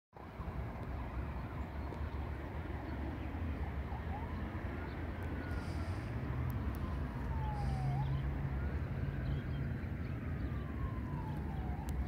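Faint siren wailing slowly up and down in pitch, starting about four seconds in, over a steady low rumble.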